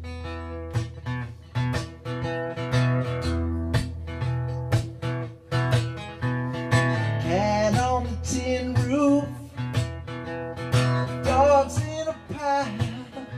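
Acoustic guitar strummed in a steady rhythm during an instrumental break in a solo song. A melody line slides up and down in pitch over the chords about halfway through and again near the end.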